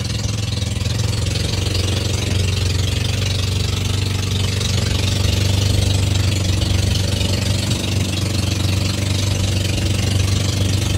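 Engine running steadily at constant speed, a strong low hum that stays unchanged throughout.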